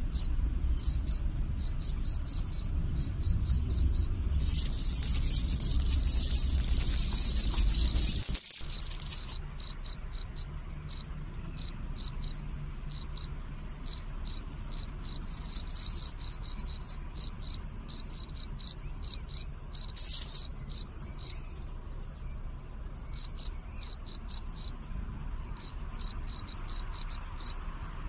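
Field cricket chirping: short, evenly repeated high chirps, about three a second. About four seconds in, a loud high hiss joins for about five seconds.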